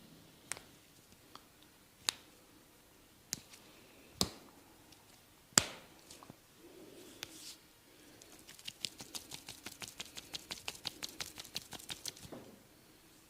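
Massage sounds from a barber's hands: a few separate sharp snaps a second or so apart, then a fast, even run of hand strikes, about nine a second, lasting some four seconds.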